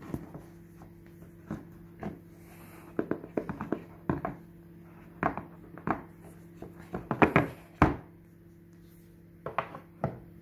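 Hands handling a cardboard iPhone box while lifting its lid off: scattered taps, knocks and short scrapes, some in quick clusters, over a faint steady hum.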